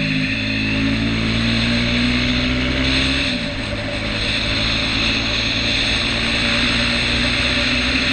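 KTM Duke 390's single-cylinder engine pulling under throttle, its pitch rising slowly for about three seconds, then dropping abruptly about three seconds in and running steady, under heavy wind rush.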